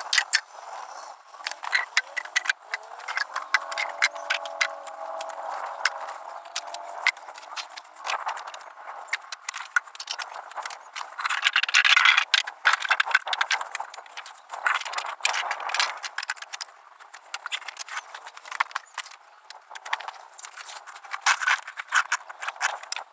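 Drink cans, plastic bottles and other litter clattering, clinking and crinkling as they are pulled from under a rock overhang and dropped onto a growing pile: a quick irregular run of clicks, knocks and rustles, loudest about halfway through.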